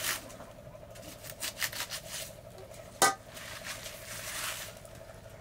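Leafy greens being torn and broken up by hand, with leaf rustling and small snapping clicks, and one sharp snap about three seconds in.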